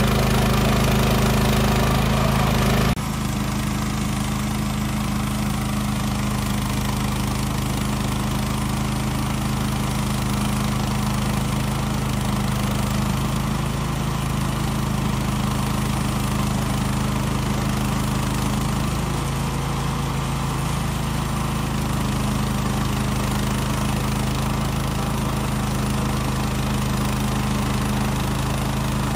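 Woodland Mills HM126 portable bandsaw mill running steadily, its engine loud as the blade saws through a cedar log. About three seconds in the sound drops abruptly to a slightly quieter, steady run of the same engine.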